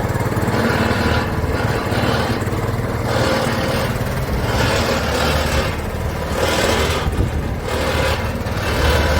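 Road roller's diesel engine running steadily, with a hiss over it that swells and fades about every second and a half.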